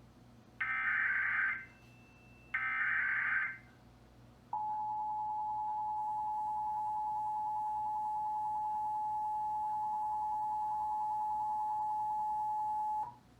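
Emergency Alert System broadcast tones: two harsh, buzzing bursts of SAME digital header data, about a second each, then the EAS two-tone attention signal held steadily for about eight and a half seconds before it cuts off sharply.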